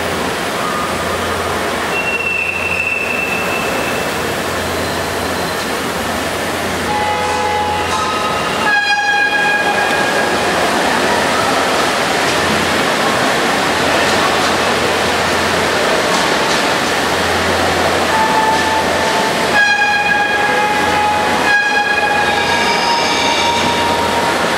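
Whistles on five-inch-gauge live-steam model locomotives sounding several times over a steady rushing hiss: a short high whistle about two seconds in, a chord-like whistle blast about nine seconds in, and two more near the end.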